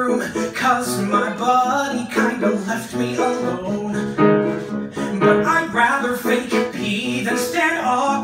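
Grand piano accompanying a man singing a show tune live.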